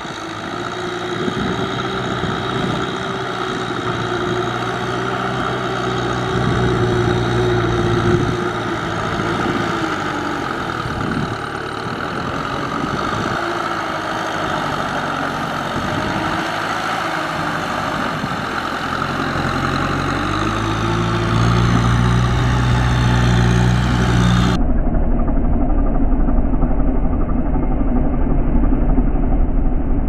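Kubota M6040 tractor's diesel engine working under load as it pulls a rotary tiller through a muddy rice paddy, its pitch dipping and recovering as the load changes. About 25 seconds in, the engine sound turns duller and deeper.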